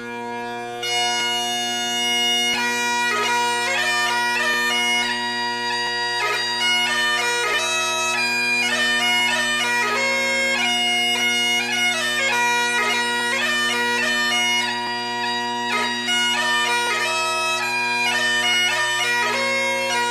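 Bagpipe music: a chanter melody played over steady drones. The drones sound alone briefly, and the melody comes in about a second in.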